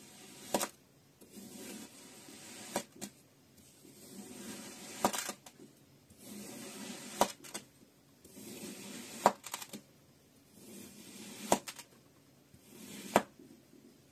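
A thin flat blade slicing down through a block of kinetic sand again and again: each cut is a soft scrape ending in a sharp tap as the blade meets the table, seven times about two seconds apart.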